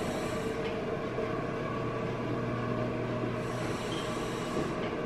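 Breathing through a gas-and-air (Entonox) mouthpiece: long, drawn breaths heard as a hiss, one at the start and another about three and a half seconds in, over a steady low hum.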